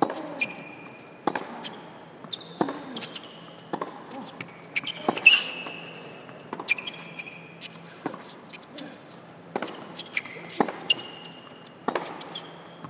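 Tennis rally on an indoor hard court: racket strikes and ball bounces about every second and a half, with tennis shoes squeaking on the court between shots.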